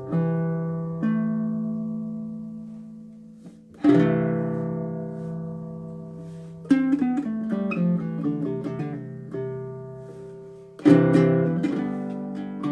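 Short-scale baritone ukulele strung with low-tension, low-octave GCEA strings, played as a sound sample. A few strummed chords are left to ring out, then comes a quicker run of picked single notes, and another strum near the end.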